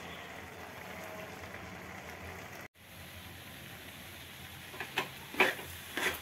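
Grated carrots simmering in boiling-down milk in a kadhai, a steady bubbling hiss. Near the end a steel spatula stirs them, scraping and knocking against the pan a few times.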